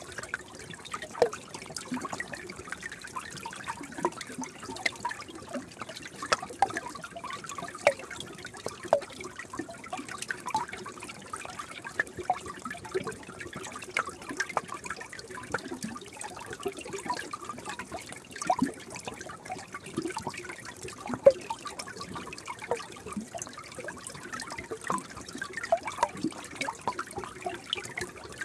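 Gentle stream water trickling steadily, a continuous rush dotted with many small, quick plops and gurgles.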